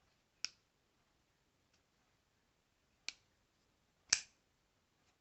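Three short, sharp clicks: one about half a second in, one about three seconds in and the loudest about four seconds in, with near silence between.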